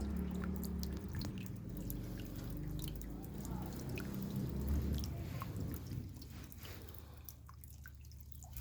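Raindrops dripping: scattered, irregular drop hits over a low rumble that dies down near the end.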